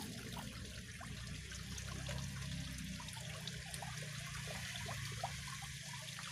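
Water trickling softly in a muddy rice-paddy ditch, with many small drips and gurgles throughout.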